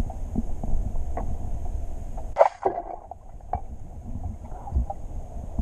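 Muffled underwater noise with a few faint clicks, and a sudden loud thump about two and a half seconds in: a rubber-powered Abellan Denton 120 speargun firing its 8 mm shaft underwater.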